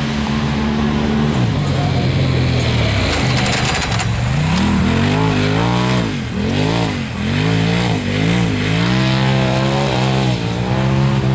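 Side-by-side UTV engine under hard driving: held high at first, dropping in pitch about a second in, then revving up and down again and again as the throttle is worked over the dirt course.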